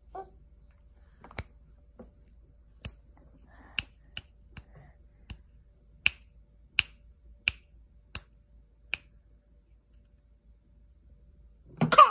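Sharp slaps from a baby's hands, about a dozen of them at uneven spacing of roughly half a second to a second, stopping about nine seconds in. Near the end comes one louder, duller knock.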